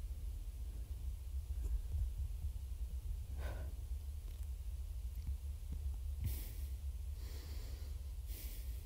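A person slurping spaghetti: three short, airy sucking sounds in the second half, over a steady low room hum.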